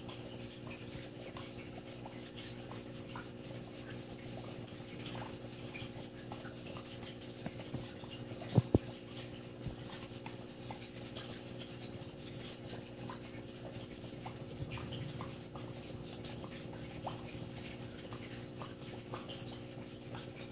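Steady hum of running aquarium equipment under a faint hiss, with scattered small clicks. Two sharp knocks land close together a little before halfway.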